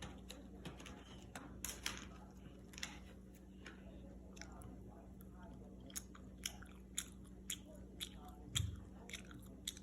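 A person chewing a bite of mesquite-seasoned sliced turkey lunch meat: faint, scattered mouth clicks and smacks, coming about two a second in the second half.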